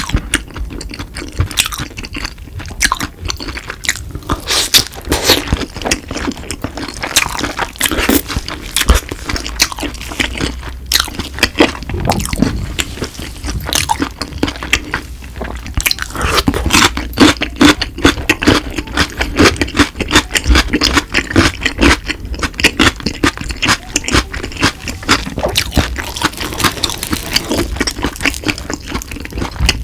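Close-miked chewing of sauce-coated boneless yangnyeom fried chicken, with crisp crunches and wet, sticky mouth sounds; a cube of pickled radish is bitten and crunched partway through.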